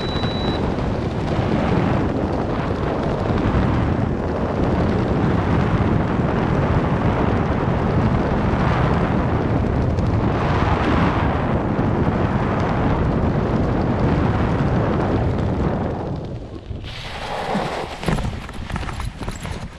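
Heavy wind buffeting the helmet camera's microphone while gliding under an open parachute canopy, a dense rumbling rush that eases and turns gustier near the end.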